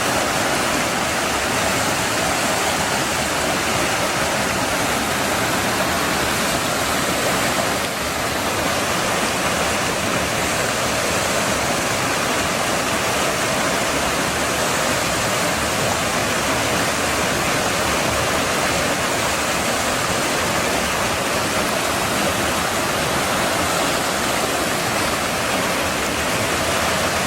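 Fast-flowing river water rushing steadily over rapids.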